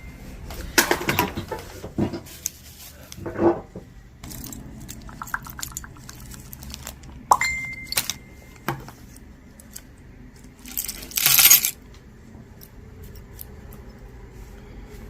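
Costume jewelry pieces clinking and jangling together as they are picked through and set down, with sharp metallic clicks, a couple of short ringing clinks and a louder rattling rush about eleven seconds in.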